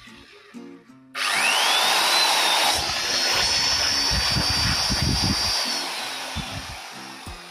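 Modern M-2600L 700 W circular saw running with no blade fitted: the motor switches on about a second in with a whine that rises quickly to a steady pitch, runs for about four and a half seconds, then is let go and winds down. The motor sounds fairly smooth.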